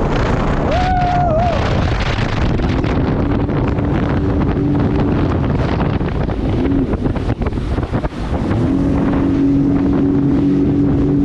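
Motorized watercraft engine running under way, with heavy wind buffeting the microphone; the engine note steadies into one held tone about three-quarters of the way through.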